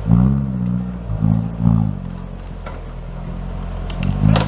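Off-road 4x4 engine revving in short bursts, twice in the first two seconds and again near the end, running steadier between; a few sharp clatters come near the end.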